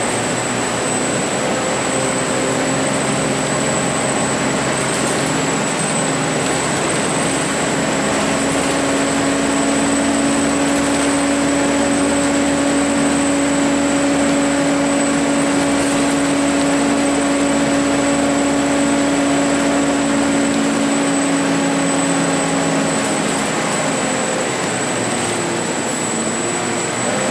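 Volvo B10BLE CNG bus under way, heard from inside the passenger cabin: engine and road noise with a steady droning hum that eases off a few seconds before the end.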